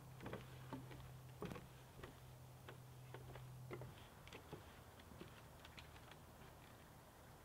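Faint footsteps on a wooden plank boardwalk: irregular light knocks and ticks that thin out near the end, over a low hum that cuts out about halfway.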